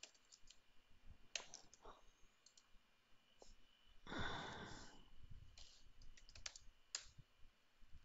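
Faint, scattered computer keyboard key clicks and mouse clicks, with a brief breathy rush about four seconds in.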